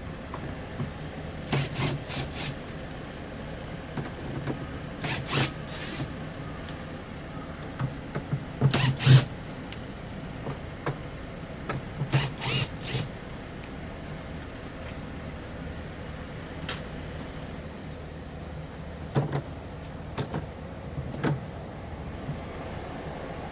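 Irregular clusters of knocks and clatter from washing-machine parts being handled and worked on during disassembly, over a steady low hum; the loudest clatter comes about nine seconds in.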